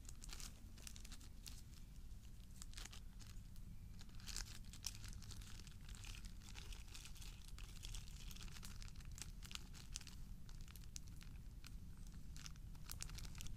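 Crinkling and rustling of a small plastic bag being handled and opened to take out a survival-kit item, with scattered sharp crackles throughout.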